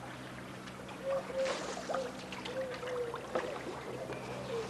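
Paddles dipping and water trickling and splashing around an inflatable boat moving through floodwater. A faint wavering tone comes and goes from about a second in, over a steady low hum.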